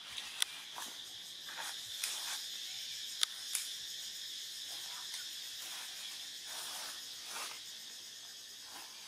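Steady high-pitched drone of insects in forest trees, with a few sharp clicks and short rustles over it.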